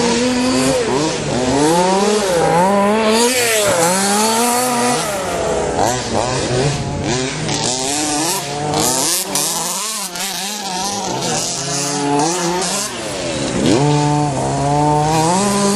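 Several 1/5-scale off-road RC cars' small two-stroke petrol engines revving up and down as they race, their overlapping pitches constantly rising and falling.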